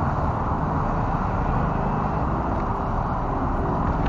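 Steady rumble of a radio-controlled Tamiya Toyota Land Cruiser 40 rolling over pavement, heard through its onboard camera, mixed with street traffic.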